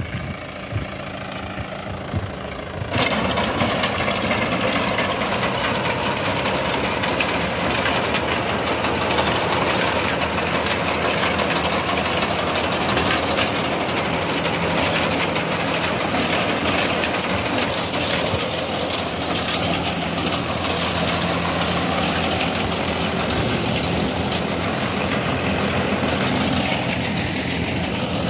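Mahindra tractor's diesel engine running steadily while the front-mounted reaper binder cuts and binds wheat, its cutter and binding mechanism adding a dense, fast clatter. The sound steps up suddenly about three seconds in and then stays loud and even.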